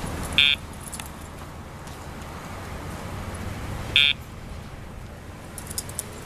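Two short electronic beeps from a dog-training remote collar system, about three and a half seconds apart, over a steady low outdoor rumble. A few light metallic jingles near the end.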